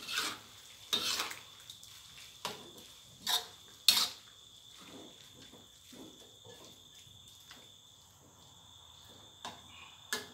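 Metal spatula scraping and clanking against a wok while stir-frying pork and vegetables. A run of sharp strokes over the first four seconds, softer stirring for a while, then more clanks near the end.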